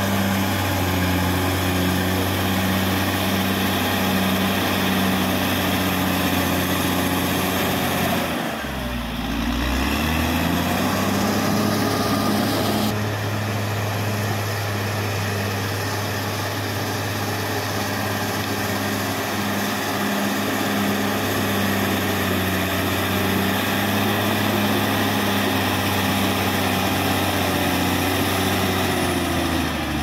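Caterpillar D6R XL bulldozer's diesel engine running steadily at working revs. About eight seconds in, the revs sag briefly and then climb back up.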